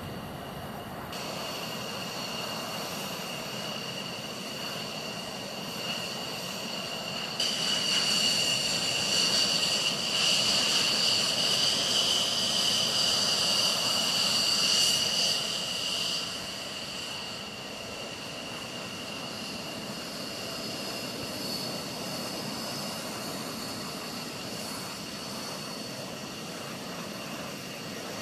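F-16 fighter jet engines running on the ground: a steady, high turbine whine made of several tones over a jet rush. It jumps much louder about a quarter of the way in and drops back a little past the middle.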